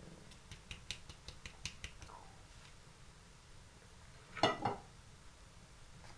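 Plastic flour sieve being shaken and tapped over a plastic mixing bowl: a quick run of light ticks, several a second, for about two and a half seconds. About four and a half seconds in comes one louder brief clatter of kitchenware.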